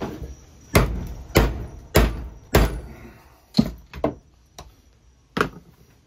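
Hammer blows on a steel punch driving a crimp into a copper lug on heavy 1-gauge battery cable held in a bench vise. About eight sharp metal strikes: a quick run of five about every half second, then a few more spaced out.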